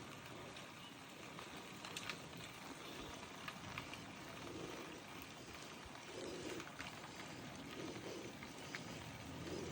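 A bird's low call, repeated four or five times from about halfway in, over a faint steady hiss with a few scattered clicks.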